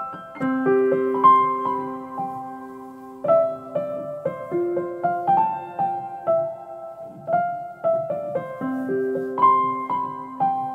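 Background piano music: a slow, gentle melody of single notes over held low notes.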